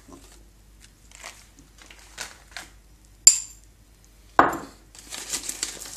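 Kitchen handling sounds: faint ticks and rustles, then a metal spoon clinks sharply once on the cooking pot, followed about a second later by a duller knock. Near the end a packet starts rustling and crinkling.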